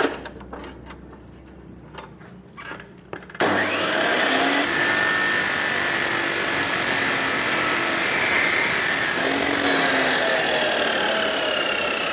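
1600-watt abrasive cut-off saw starting up suddenly about three and a half seconds in, then running steadily as its wheel grinds through a steel bar. The motor keeps running under the cutting load on a 1200-watt supply fed through a soft-start device; it is strong enough and the supply does not trip.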